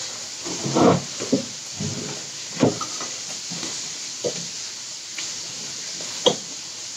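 Close-up eating sounds: chewing and mouth noises with about five short, sharp smacks or clicks over a steady hiss.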